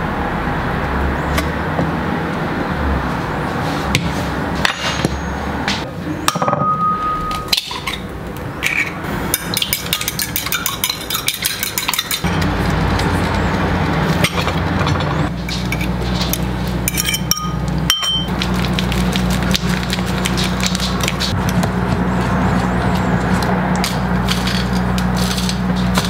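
Background music, with clinking of a fork and knife against a ceramic bowl and plate as eggs are whisked and food is prepared.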